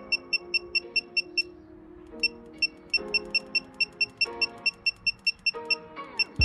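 Background music: held chords that change about every second, over a quick, high beeping tick about four times a second that drops out briefly about a second and a half in.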